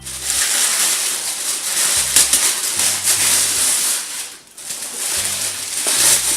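Parcel packaging rustling and tearing as it is pulled open, a dense crackling noise with a short pause a little past the middle.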